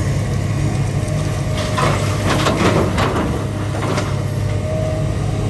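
Excavator's diesel engine running steadily, with a run of clanks and scraping, as of rock against the bucket, between about two and four seconds in.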